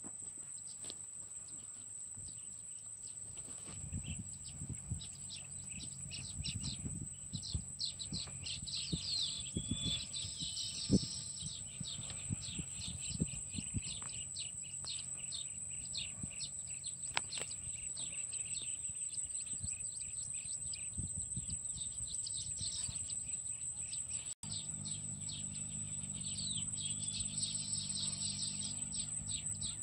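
Birds chirping rapidly with bursts of warbling song, over a steady high-pitched whine, with a few sharp clicks.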